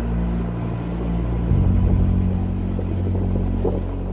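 Low, steady engine drone of the ship KM Logistik Nusantara 4 heard on deck while it gets under way. About a second and a half in, the hum turns louder and deeper with a faint regular pulse.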